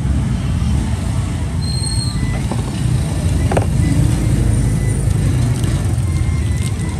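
A steady low rumble, with a single short click about three and a half seconds in.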